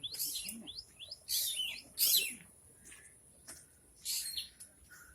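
Birds chirping: a string of quick rising chirps, broken by three louder, harsher calls, the loudest about two seconds in.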